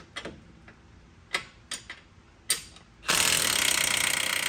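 A few light metal clinks, then a DeWalt cordless impact gun hammering loudly for about a second and a half near the end, breaking loose a 21 mm front suspension pivot bolt held by a wrench.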